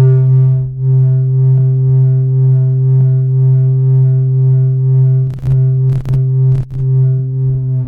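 Experimental electronic sound effect: a steady, low synthesized drone with a buzzy stack of overtones, broken by three short glitchy clicks about five to seven seconds in.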